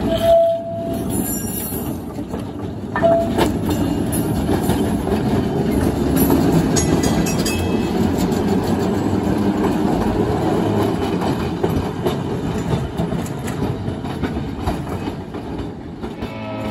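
Open trolley car 1758 running past on the track, its wheels rumbling and clattering over the rails. There are two short high squeals in the first few seconds.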